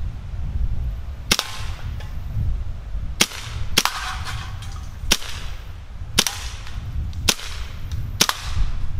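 Umarex Legends M712, a CO2 blowback BB pistol built as a Mauser C96 replica, fired seven single shots in semi-automatic. Each is a sharp crack, spaced irregularly about one to two seconds apart.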